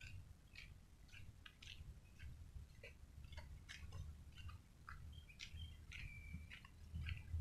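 Faint birds chirping in many short calls, one holding a steady note briefly about six seconds in, over a low steady rumble.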